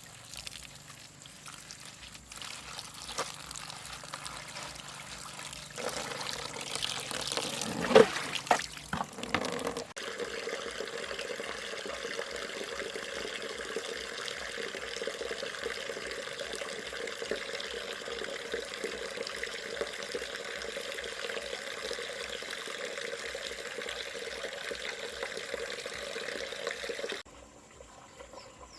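Water pouring steadily from a bamboo water pipe, with a sharp knock about eight seconds in; the flow sound stops abruptly near the end.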